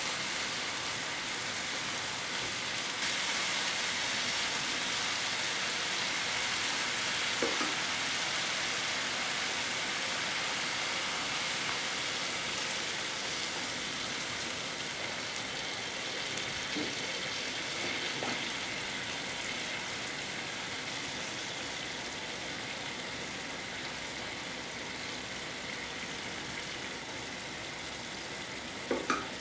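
Grated beetroot, carrot and onion sizzling steadily in a frying pan, the hiss slowly growing quieter, with a few light knocks of a spatula against the pan.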